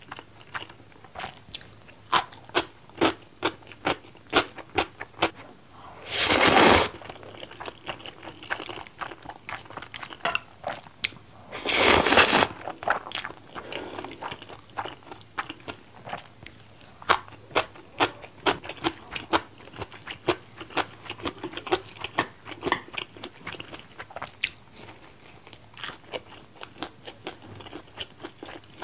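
Close-miked eating sounds from a person eating stir-fried instant noodles with fried dumplings and pickled radish: steady chewing with many small wet clicks and crunches. Two louder, noisier sounds about a second long come about six and twelve seconds in.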